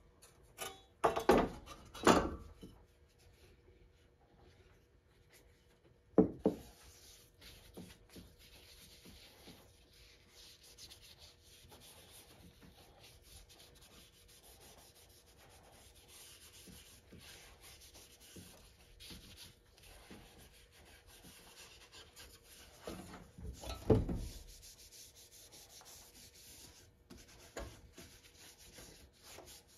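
A rag rubbing oil onto the steel blade and wooden handle of an antique crosscut saw, a steady, soft scrubbing. It is broken by a few loud knocks as the saw is shifted on the workbench: two close together near the start, one a few seconds later, and one more near the end.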